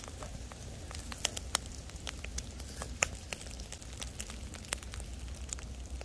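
Open wood fire crackling under a grill grate, with irregular sharp pops, a handful of them louder than the rest, over a steady low rumble.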